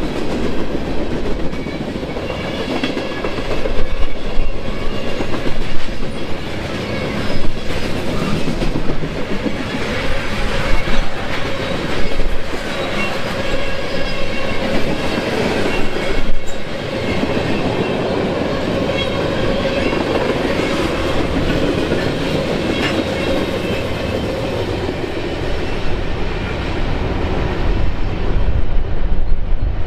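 Train rolling past, with a steady rumble and its wheels clicking over rail joints at uneven intervals.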